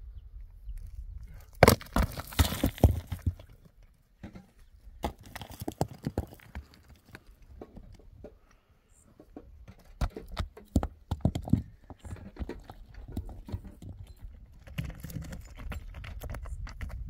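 Loose rocks knocking and clacking against each other as stones are handled and shifted on a rocky slope, with crunching steps on scree. The clatter is densest about two seconds in and again around ten to eleven seconds.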